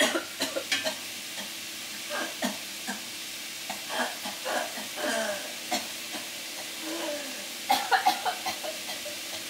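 A woman coughing and sputtering off and on after choking on her own saliva, over food sizzling in a pot. At first a wooden spatula stirs the pot.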